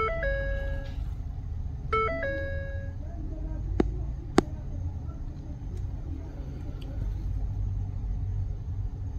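Two electronic chimes, one at the start and one about two seconds in, each a quick stepped note settling into a held tone, over a steady low rumble; two sharp clicks about four seconds in.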